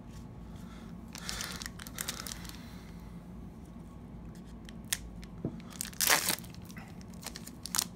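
Wrapper of an Upper Deck hockey trading card pack being torn open and crinkled by hand. Crinkling comes about a second in, and a louder sharp tear about six seconds in.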